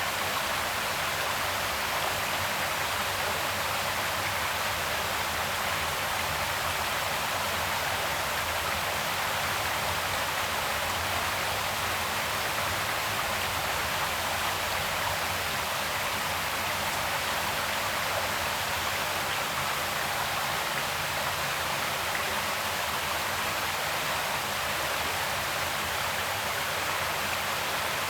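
Creek water flowing, a steady, even rush of running water.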